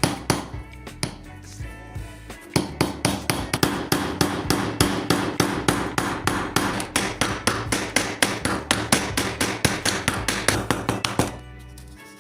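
Rapid hammer strikes, about four a second, starting about two and a half seconds in and stopping shortly before the end, over background music.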